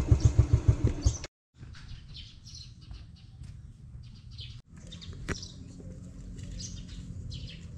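A motorcycle engine idles with an even low putter for about a second, then stops abruptly. After that, birds chirp in short calls over faint background, with one sharp click about five seconds in.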